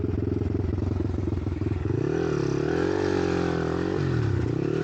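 Monkey bike's small engine idling with a steady beat, then revved up and back down twice, the throttle blipped to keep it from stalling.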